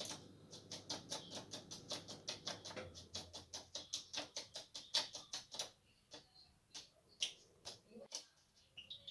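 Pet budgerigar making a rapid, even run of small clicks, about six a second, that thins out about six seconds in to scattered clicks and short chirps.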